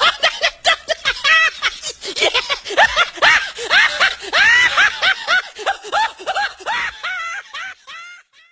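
A high-pitched, rapid laughing sound effect: a run of short cackles, each rising and falling in pitch, several a second. It fades out near the end.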